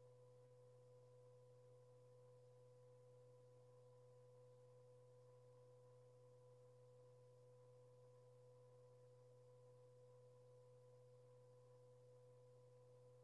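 Near silence: only a faint, steady electronic tone with a fainter one an octave above it, over a low hum, unchanging throughout.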